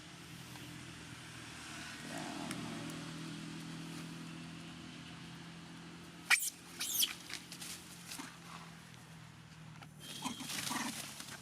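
Monkeys calling: a loud, shrill squeal about six seconds in, further high calls a moment later, and another cluster of calls near the end, over a steady low hum.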